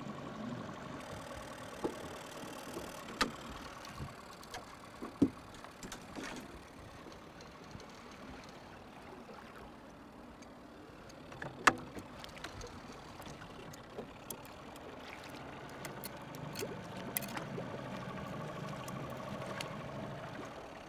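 Boat motor running at a steady low trolling idle under the wash of river water, with a few sharp clicks and knocks; the loudest comes a little past halfway.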